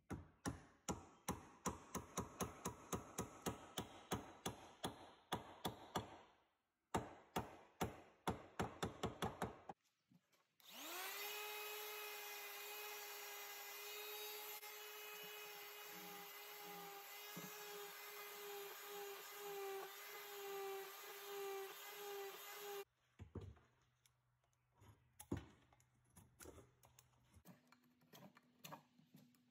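Quick, regular back-and-forth hand-tool strokes on wood, about three a second with a short pause, while a wooden hammer handle is worked at the head. Then an electric orbital sander starts up and runs steadily on the handle for about twelve seconds before cutting off, followed by a few light knocks.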